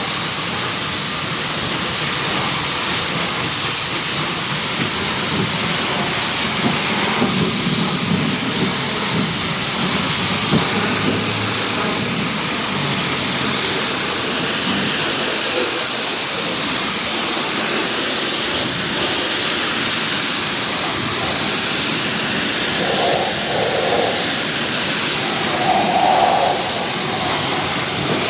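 Pressure washer spraying water in a steady hiss, with a high whine running through it.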